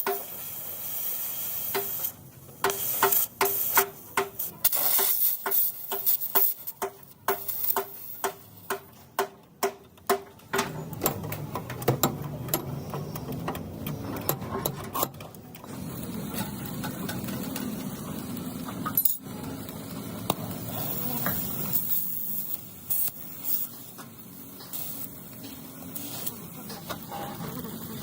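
Hammer blows on sheet-metal car body panels, several a second and each ringing briefly, for about the first ten seconds of panel beating. After that comes a steady hissing noise with an occasional knock.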